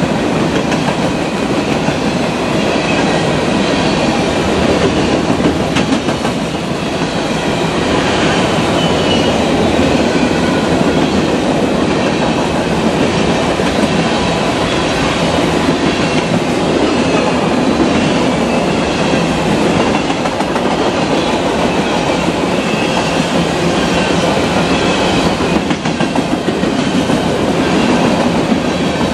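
Freight train of empty grain hopper cars rolling steadily past, with continuous wheel-on-rail noise and faint high squeals that come and go.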